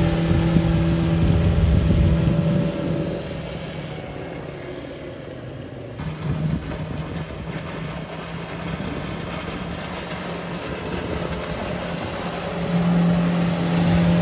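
Suzuki outboard motor running steadily at speed on a passing boat, with water rushing from the hull and wake. It is loud at first, fades as the boat runs away, and grows loud again near the end as it comes back past.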